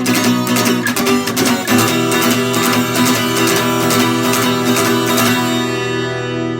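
Acoustic guitar strumming chords in a steady rhythm; about five seconds in the strumming stops and a last chord is left to ring out and fade.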